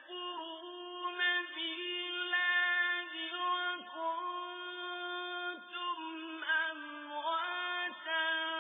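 A man's voice reciting the Quran in melodic tajweed style, drawing out long held notes with ornamented glides between them.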